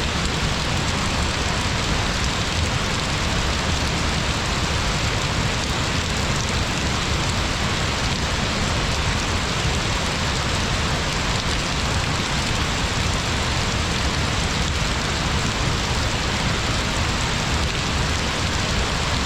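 Shiraito Falls, a broad curtain of many thin streams pouring over a cliff, making a steady rushing hiss of falling water that does not change.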